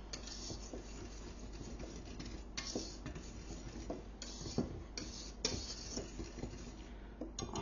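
A utensil stirring dry flour mix in a stainless steel mixing bowl: soft scraping with irregular light ticks and clinks of metal against the bowl.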